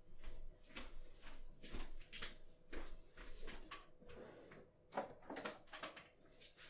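Someone rummaging among tools to fetch a pair of pliers: irregular light knocks, clicks and rustles, with a louder knock about five seconds in.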